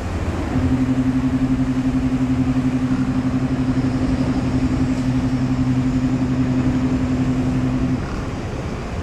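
Ship's horn sounding one long, steady, low blast of about seven and a half seconds. It starts about half a second in and cuts off near the end, over steady outdoor background noise.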